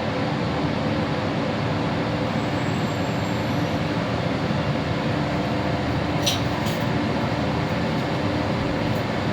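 Mitsubishi passenger lift car travelling upward: a steady rumble and rush of the moving car with a faint hum, and a brief click about six seconds in.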